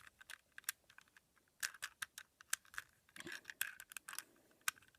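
Irregular plastic clicking of a Rubik's Cube being handled, its layers shifted and loose pieces fitted back in, coming in small bunches.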